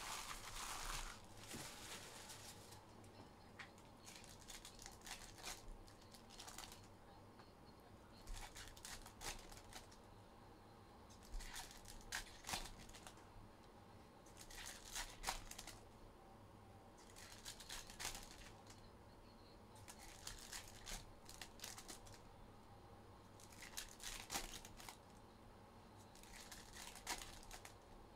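Trading card packs being opened by hand: wrappers tearing and crinkling in short bursts every second or two.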